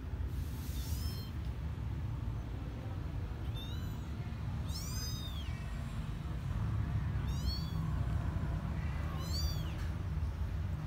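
Young kittens mewing: about five short, high-pitched mews, each rising then falling in pitch, a second or two apart, over a steady low hum.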